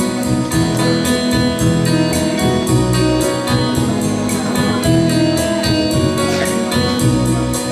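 Instrumental music with sustained chords and a steady beat.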